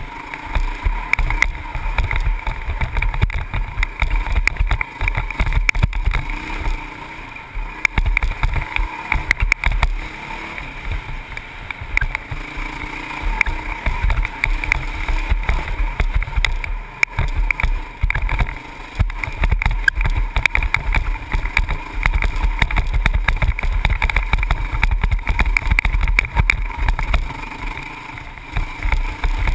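Honda CRF450X dirt bike's single-cylinder four-stroke engine running under way, heard from a helmet camera, with wind buffeting on the microphone. The level rises and falls as the throttle is worked, dipping briefly a few times.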